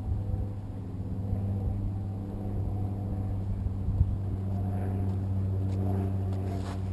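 Quadcopter's brushless motors and propellers (Xaircraft X450 Pro with Cobra 2213 motors) running in flight with a steady hum, with a single knock about four seconds in and a few clicks near the end.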